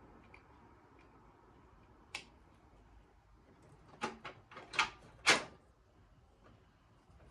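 Sharp clicks and knocks of hard computer parts being handled and fitted: one click about two seconds in, then a quick run of four or five clicks a couple of seconds later, the last the loudest.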